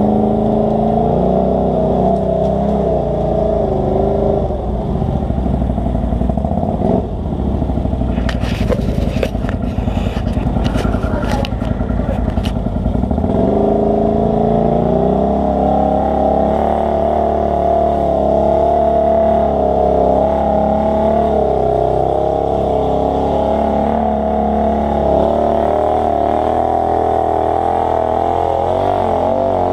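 ATV engine running while riding a dirt trail, its pitch rising and falling with the throttle. Clattering and scraping from about 8 to 12 seconds in.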